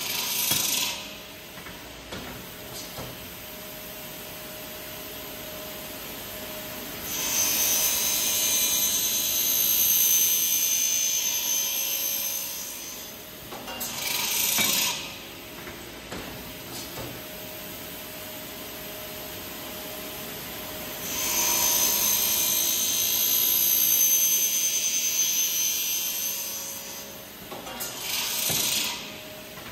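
Eisele automatic circular saw running through repeated cutting cycles on metal stock. The motor hum stays steady, and twice the blade feeds through a cut for about six seconds with a loud, high ringing. A short burst of noise follows each cut.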